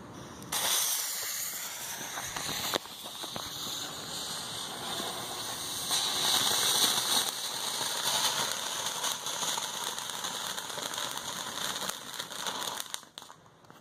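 Colour Stars ground fountain firework by Boomer Fireworks spraying sparks: a steady rushing hiss with crackling, starting suddenly about half a second in and cutting off near the end.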